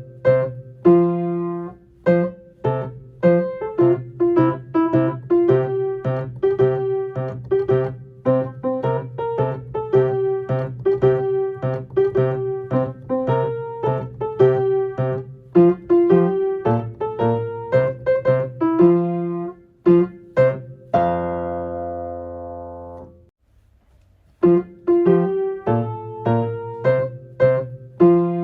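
Solo piano playing a simple, bouncy children's-song accompaniment, the left hand one note at a time. About 21 seconds in a low chord is held and dies away, then after a short pause the playing starts again.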